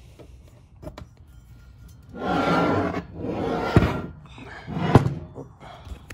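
A bare aluminum small-block Chevy cylinder head being moved and turned over on a hard surface: three stretches of scraping and sliding, with two sharp knocks about four and five seconds in.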